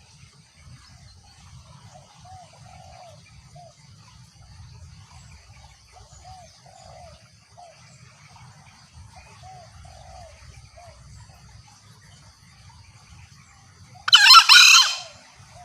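Green junglefowl calling: soft, short notes in three small clusters, then one loud, harsh crow lasting under a second near the end.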